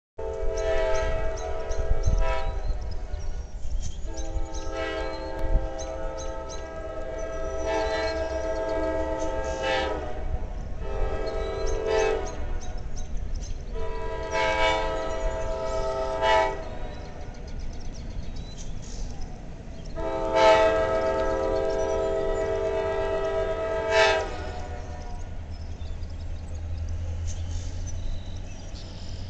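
CSX freight locomotive's multi-chime air horn blowing a series of about five blasts as the train approaches, mostly long ones with a shorter one in the middle, the engineer varying the horn pressure. A low rumble from the oncoming train builds near the end.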